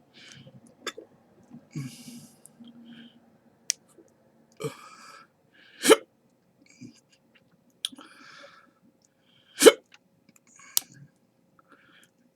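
A person hiccupping in sharp, irregular jolts, the two loudest about four seconds apart, with heavy breaths in between, a reaction to eating a ghost pepper.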